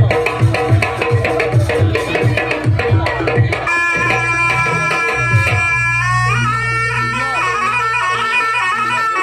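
Jaranan accompaniment music: hand drums (kendang) beating in a quick rhythm, then from about four seconds in a shrill reed wind instrument of the slompret kind takes up a held, stepping melody over a steady low drone.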